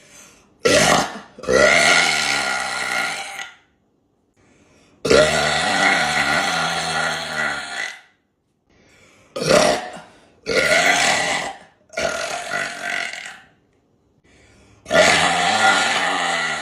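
A woman burping repeatedly: about seven belches in a row with short pauses between. Some are brief, and others are drawn out for two to three seconds.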